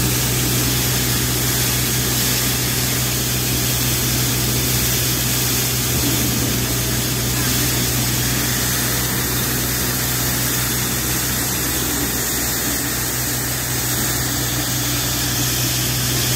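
Multi-crop thresher driven by a 35 hp tractor running steadily while it delivers cleaned grain: a constant, even mechanical drone with a strong low hum.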